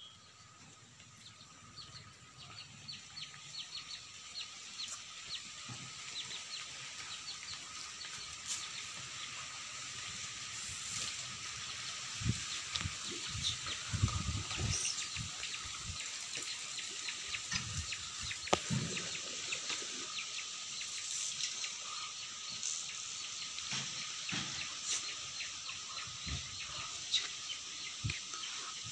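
Chickens clucking now and then over a steady high-pitched outdoor hiss full of short chirps. Scattered low thumps cluster about halfway through.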